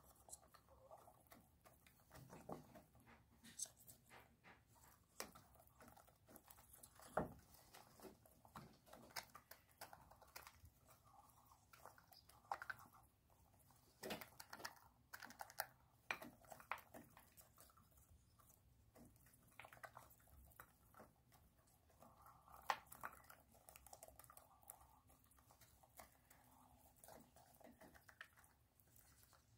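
Hens pecking at a plate of mash and chopped greens: faint, irregular sharp taps and clicks of beaks striking the plate, with a few louder knocks.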